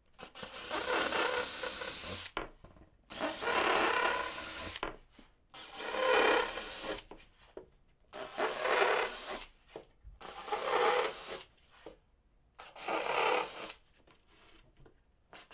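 Makita 18V cordless drill boring a series of holes through plywood: about six short runs of one and a half to two seconds each, with brief pauses between, and a steady high whine in each run. A further run starts right at the end.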